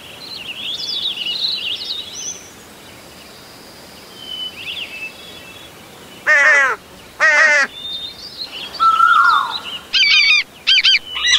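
Birdsong sound effects: small birds chirping with high, quick notes, then a crow cawing twice, about six and seven seconds in. More chirps and a falling call follow, then a quick run of loud parrot squawks near the end.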